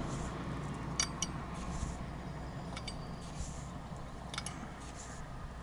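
A metal dessert spoon clinking a few times against the rims of a thermos and coffee and sugar containers as they are spooned in, over a steady low rumble.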